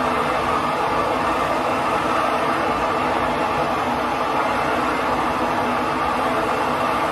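MAP gas torch flame burning steadily as it heats a copper pipe fitting on a water heater's T&P relief line for soldering.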